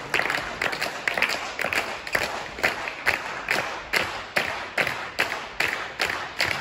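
Steady rhythmic clapping in a sports hall, about two claps a second, keeping an even beat.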